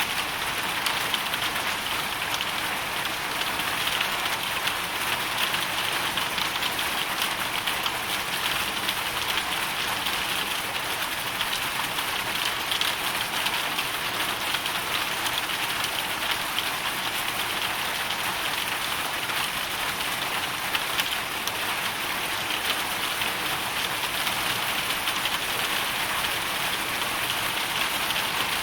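A hailstorm: hail and rain falling steadily on a hard surface, a dense, even hiss of countless small impacts with no let-up.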